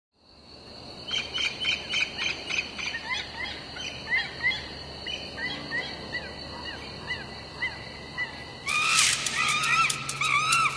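Birds calling: a run of short chirps and arching calls over a steady high tone, with louder calls joining about nine seconds in.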